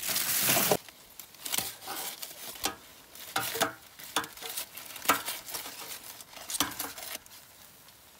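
Aluminium foil crinkling as it is folded over into a packet and laid on a grill grate: a loud crackling rustle at the start, then a string of short crinkles that stop about seven seconds in.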